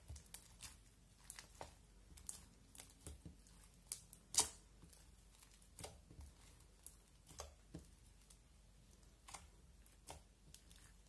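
Clear slime mixed with hard coloured flake bits being pressed and kneaded by hand: faint, irregular crackles and sticky pops, a few a second, with one louder pop about four seconds in.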